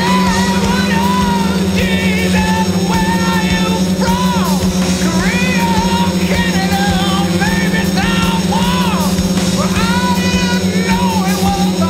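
Rock music with a singing voice, over a steady low hum from the hexacopter's motors.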